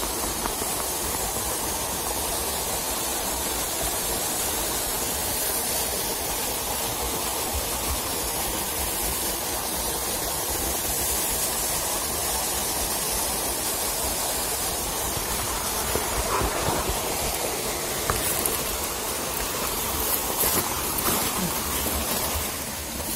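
Steady rushing hiss of a small forest stream's running water. From about sixteen seconds in it is joined by scattered rustling and snapping of undergrowth.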